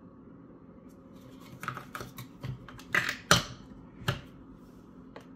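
Plastic clicks and knocks of a Keurig single-serve coffee brewer being loaded with a K-cup pod and its lid handled. The clicks are irregular, a handful of them, with the sharpest snap about three seconds in.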